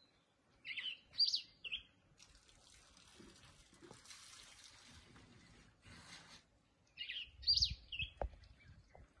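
A songbird calling twice, the same short three-note phrase of high, quick notes each time, about six seconds apart, over a faint steady hiss.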